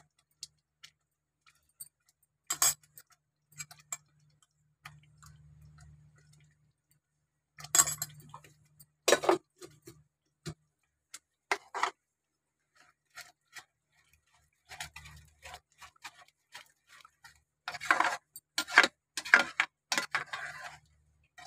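Steel slotted spoon stirring thick gravy in a pan, clinking and knocking against the metal at irregular intervals, with a quick run of clinks near the end.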